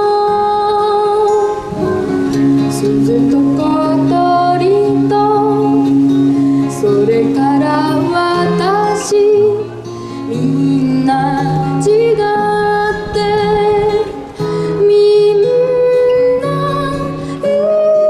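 A girl singing a slow song into a microphone over a recorded backing track with acoustic guitar, amplified through stage speakers; long held notes with vibrato and pitch glides.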